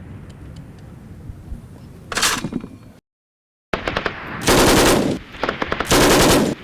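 Gunfight sound effect: after a quiet couple of seconds, one shot rings out, the sound cuts to dead silence for under a second, then automatic machine-gun fire starts in repeated loud bursts.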